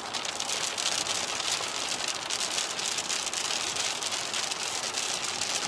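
Rain hitting the windshield and body of a moving pickup truck, heard inside the cab: many fine ticks over a steady hiss of rain and wet tyres on the highway.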